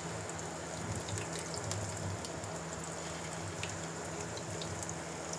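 Chicken-and-vegetable kebab patties shallow-frying in hot ghee in a frying pan: a steady, fairly quiet sizzle with scattered small crackles and pops.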